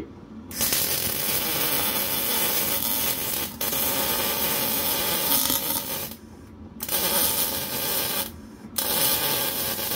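HZXVOGEN electric welder's arc running in three passes: a long one of about five and a half seconds with a momentary break partway through, then two shorter ones of about a second and a half each, with short pauses between.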